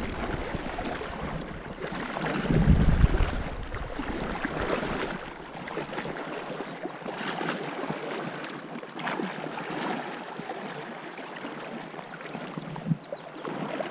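River current rippling and rushing in a steady, surging hiss, with a gust of wind buffeting the microphone about two and a half seconds in.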